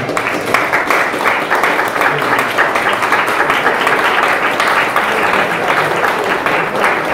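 Audience applauding after a speech: many hands clapping in a dense, steady patter.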